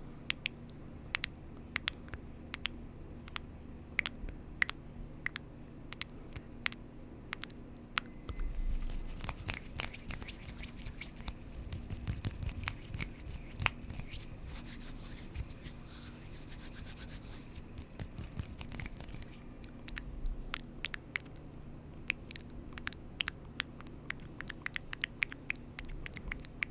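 Close-miked ASMR trigger sounds: scattered small sharp clicks, then a dense scratchy rubbing for about eleven seconds starting about eight seconds in, then more scattered clicks.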